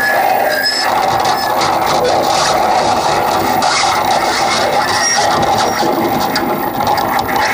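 Harsh electronic noise played live: a loud, unbroken wall of grating, scraping noise over a steady drone, with no beat.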